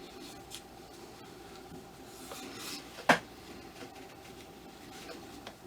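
Hands fitting armor pieces onto a resin ball-jointed doll: faint rubbing and handling, with one sharp click a little after three seconds in.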